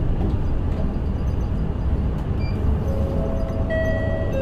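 Mitsubishi Fuso Aerostar city bus running along the road, heard from inside the cabin as a steady engine and road rumble. About three seconds in, a steady chime-like tone comes in over it.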